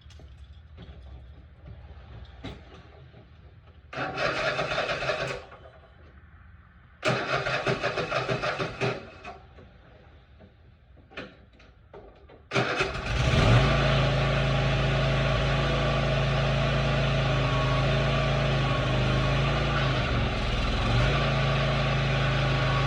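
Riding lawn mower's electric starter cranking the engine in two short bursts, then a couple of clicks, and on the next try the engine catches and runs steadily. The mower now cranks and starts with a new starter solenoid fitted, where before it only clicked.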